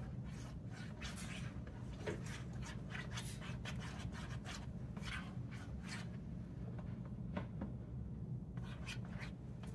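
A wooden stick stirring and scraping partly melted soy wax flakes in an electric wax-melting pot: irregular scraping strokes, about one or two a second, with a pause of a couple of seconds near the end, over a steady low hum.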